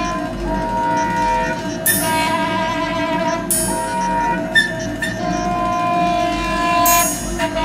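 Contemporary chamber music for soprano saxophone and percussion: the saxophone holds long, steady tones over a dense, ringing background. Three sharp, bright accents cut in about two, three and a half, and seven seconds in.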